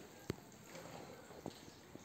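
Quiet room noise broken by a sharp single click about a third of a second in and a fainter click about a second and a half in.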